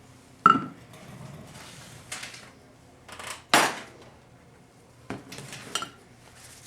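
Metal transmission pump parts and hand tools clanking on a workbench: a sharp clank with a short ring about half a second in, a louder clank around three and a half seconds, and lighter clinks near the end.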